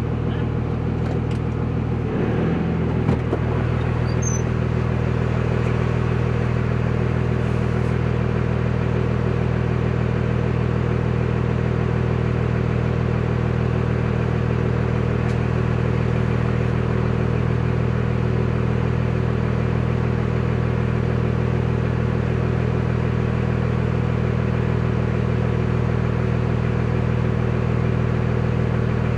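Cummins inline-six diesel engine running steadily at a constant speed, with no revving. A brief clatter comes about two to three seconds in.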